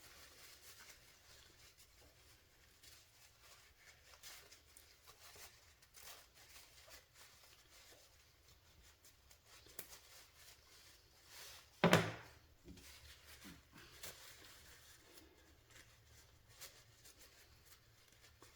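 Faint clicks, taps and rubbing of small torque-wrench ratchet parts being handled and cleaned on a workbench, with one sharp knock about twelve seconds in.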